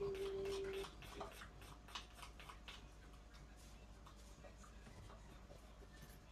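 Pestle pounding garlic, shallots, lemongrass and chilli in a mortar for a spice paste: faint quick knocks about three a second, thinning out after about three seconds. A steady tone sounds for almost a second at the start.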